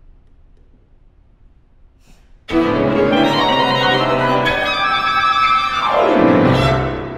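Violin, clarinet and piano break a short pause with a sudden loud chord about two and a half seconds in, the closing chord of the piece. It is held, then a falling glide in pitch comes near the end as it dies away.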